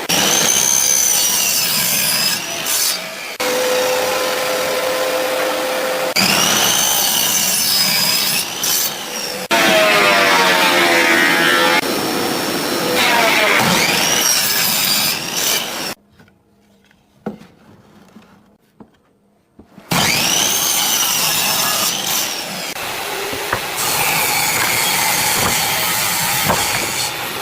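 Chainsaw cutting into logs, its pitch rising and falling as it labours under load. The sound changes abruptly every few seconds, with a lull of a few seconds and scattered knocks partway through.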